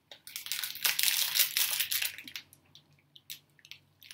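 Crisp crunching and crackling of dry crackers close to the microphone, dense for about two seconds and then thinning to scattered small cracks.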